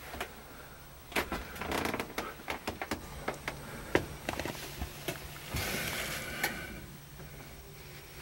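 Scattered clicks and knocks from handling inside a Lisunov Li-2 cockpit, over a low steady hum.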